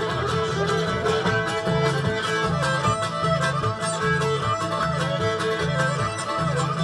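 Old-time string band playing a fiddle tune: the fiddle leads the melody over mandolin and guitar, with upright bass notes pulsing evenly on the beat.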